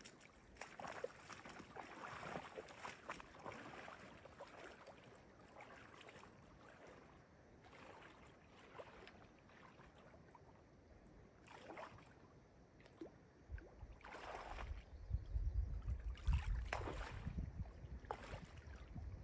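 Shallow lake water sloshing and splashing around a person's legs as he wades out from a gravel shore, with several sharper splashes in the second half. From about two-thirds of the way through, wind buffets the microphone with a low rumble.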